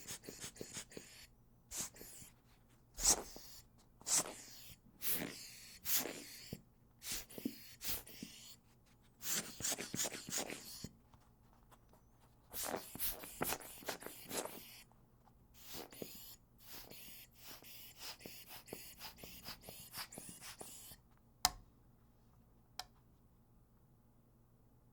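Air blowing in irregular hissing puffs and longer blasts that start and stop again and again. A sharp click comes about 21 seconds in, after which the blowing stops and only a few faint ticks follow.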